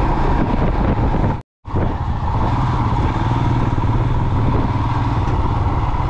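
Motorcycle engine running steadily while riding along, heard from the rider's seat. The sound cuts out completely for a moment about one and a half seconds in, then resumes.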